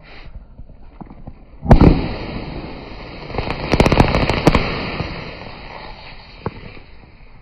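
Lithium metal burning and flaring: a sudden loud whoosh a little under two seconds in, then a steady fizzing hiss with a quick run of sharp cracks as it throws off sparks, dying away after a few seconds.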